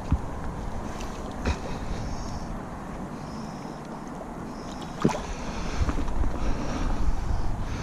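Wind buffeting the microphone in uneven gusts, with two short sharp knocks, one about one and a half seconds in and a louder one about five seconds in.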